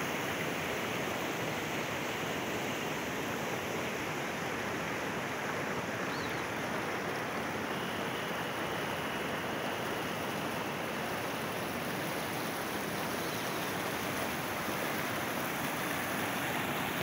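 A swollen, flooded river rushing over rocks: a steady, even rush of floodwater.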